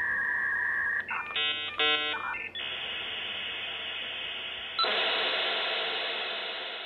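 Dial-up modem handshake: a steady high tone, a quick run of warbling beeps, then hissing line noise that jumps louder about five seconds in and fades out near the end.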